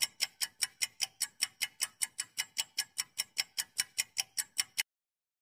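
Clock-style ticking sound effect marking a countdown timer, quick even ticks about five a second, that stops suddenly near the end.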